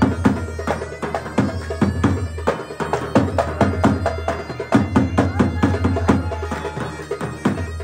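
Arab zaffa wedding music: a large barrel drum (tabl) beaten in a fast, even rhythm, with a sustained melody line held over the drumming.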